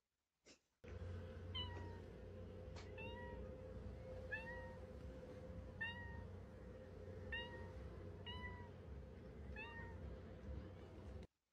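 Short meows, about eight of them, each a quick rise-and-fall call, coming every second or so over a steady low rumble. They start about a second in and stop abruptly just before the end.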